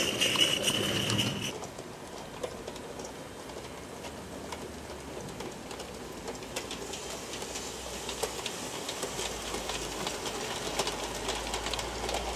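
Garden-scale model train running on its track: a locomotive passes close by at first, then the wheels of a rolling train tick over the rail joints, the clicks growing busier as it draws nearer near the end.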